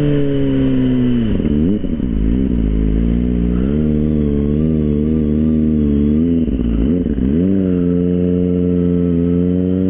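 Kawasaki ZX-25R 249 cc inline-four with an aftermarket Arrow exhaust, ridden. The engine note falls for the first second or so, dips and rises several times over the next few seconds, then climbs steadily as the bike accelerates near the end.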